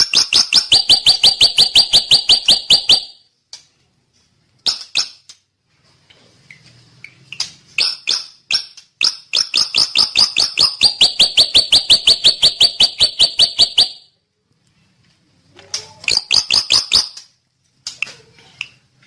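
Drongo singing in long, rapid trills of evenly repeated notes, about eight a second. One run lasts about four seconds at the start and another about five seconds in the middle, with short bursts of notes between them and near the end.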